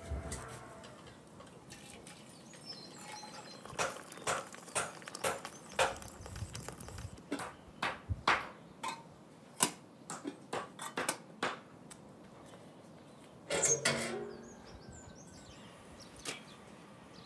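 Irregular knocks and clatter of metal and wood as a wood-burning stove's fire is tended with an iron poker, with a louder clatter of several hits close together near the end.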